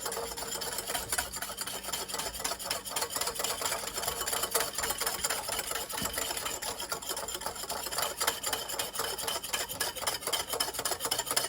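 Wire whisk beating instant coffee, sugar and water in a bowl by hand, a fast, steady rapid clatter of wires against the bowl, the mixture being whipped toward a frothy foam.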